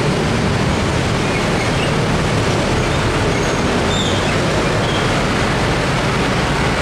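Steady road traffic noise from trucks, buses, cars and motorbikes driving over a level crossing, with a few faint high chirps about four seconds in.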